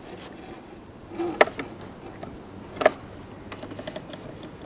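Crickets chirping steadily. Two short, sharp sounds cut in, about a second and a half apart.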